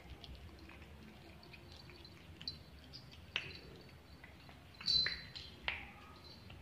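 A pet otter handling dry cat-food kibble on a tile floor: a few sharp clicks and ticks, the loudest cluster about five seconds in, along with brief thin high squeaks.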